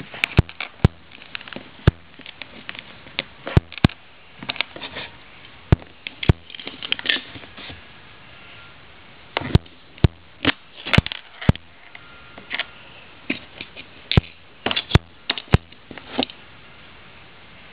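Plastic LEGO bricks clicking and knocking as a small LEGO soda machine is handled on a table top: irregular sharp clicks and taps, some in quick clusters.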